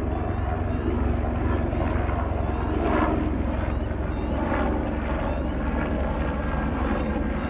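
Rescue helicopter's rotor chopping steadily over its engine noise.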